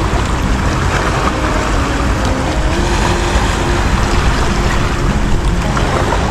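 Loud, steady low rumble of sea water and wind buffeting the microphone, with faint held notes of background music underneath.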